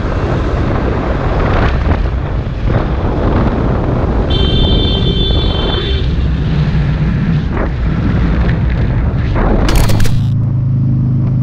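Maxi-scooter engine running under heavy wind noise on a helmet-camera microphone while riding through traffic. A high steady tone sounds for about a second and a half midway, and a sharp loud burst comes about ten seconds in.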